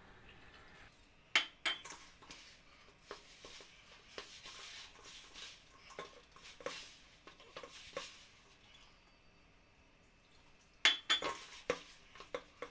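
Hands mixing wheat flour and water into dough in a stainless steel bowl: soft rubbing and squishing with sharp clinks and knocks against the steel bowl. A quieter pause comes about two-thirds through, then a quick cluster of knocks near the end.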